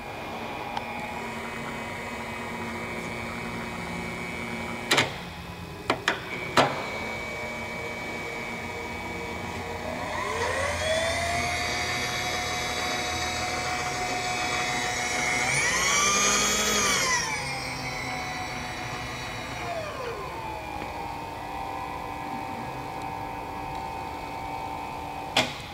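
Milling machine's electric power table feed driving the table: its motor whine rises in pitch about ten seconds in, holds, climbs higher for a couple of seconds, then winds down around twenty seconds, over a steady machine hum. Sharp clicks of the feed controls about five and six seconds in and again near the end.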